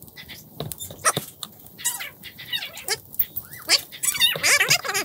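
Domestic animal calls: several short calls with wavering pitch, coming thicker and louder toward the end, among scattered clicks and knocks.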